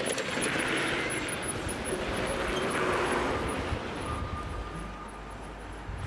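Street traffic going by: tyre and motor noise from scooters and cars that swells twice as vehicles pass, then eases.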